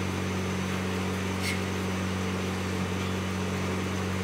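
A steady low machine hum, even in level throughout, with one faint click about a second and a half in.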